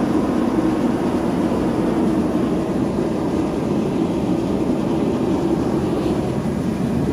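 Three gas ribbon burners firing a large forge at full heat: a steady, even roar that does not change.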